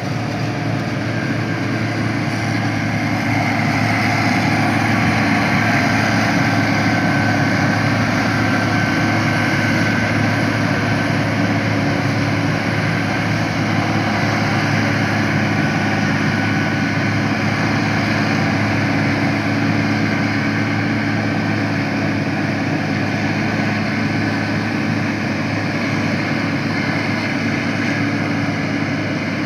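Self-propelled forage harvester chopping maize and blowing it into a tractor-drawn silage trailer: a steady heavy diesel drone with a faint high whine over it.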